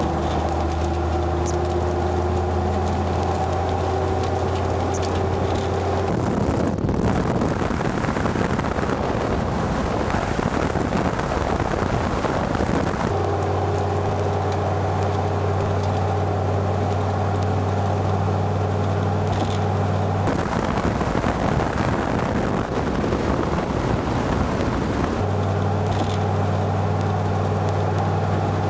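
Dodge Ram SRT-10 pickup driving at road speed: a steady low engine and road drone, broken twice by long stretches of rushing wind noise, about six seconds in and again about twenty seconds in.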